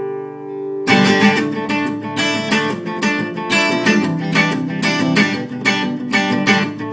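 Acoustic guitar: a held chord rings out and fades, then steady rhythmic strumming starts about a second in.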